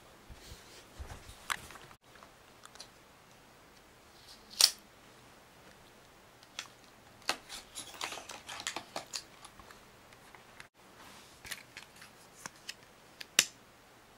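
Sharp clicks and taps of small metal and plastic parts being handled while swapping a MacBook's hard drive. They come one at a time and in quick clusters, with a loud click near the middle and another near the end.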